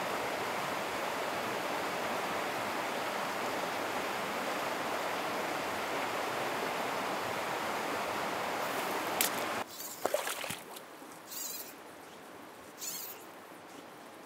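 Steady rush of flowing river water, which cuts off abruptly about two-thirds of the way in. After it, quieter, with a few sharp clicks and then two short swishes about a second and a half apart, from a fly line being cast.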